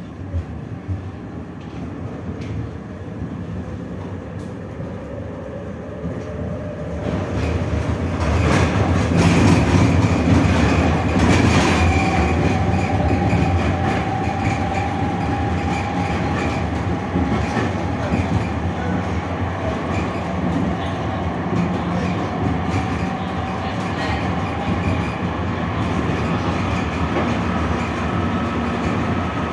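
Düwag GT6 tram's running noise heard from inside the passenger saloon: an electric traction-motor whine rises in pitch as the tram gathers speed. About seven seconds in the noise grows suddenly louder, with the wheels rumbling and clacking over the rails, and then settles into a steady whine and rumble at cruising speed.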